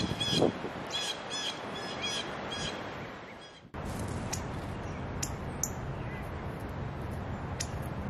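Blue jay calling in a quick series of repeated calls, cut off abruptly a little past halfway. After the cut come steady hiss and a few thin, high chirps from another bird.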